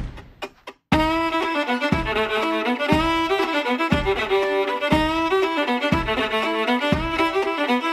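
Background music led by a fiddle, starting about a second in, over a low beat about once a second; a few short knocks come before it.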